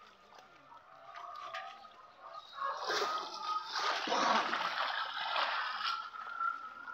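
Netted fish thrashing and splashing at the water's surface as a seine net is drawn tight in shallow water. The splashing starts about two and a half seconds in and turns loud.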